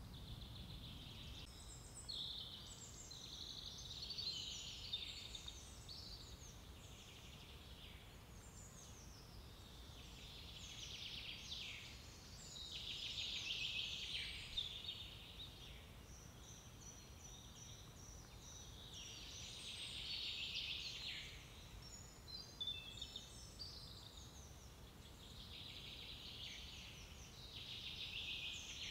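Several songbirds singing at once, with many overlapping chirping and warbling phrases that swell and fade, over a faint low rumble.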